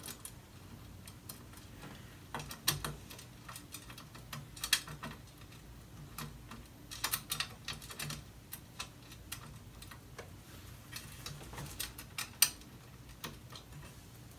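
Faint, irregular small clicks and taps of hands handling a metal monitor arm and its mounting plate while fitting screws.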